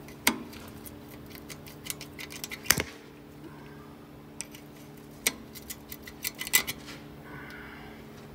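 Sharp metallic clicks and clinks of a tool working the retaining clip out of the end of an air disc brake caliper pin, in two bursts, over a steady low hum.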